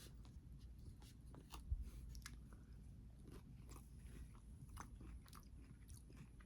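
Faint close-up chewing and biting of food, with irregular soft crunches and one louder low thump about two seconds in.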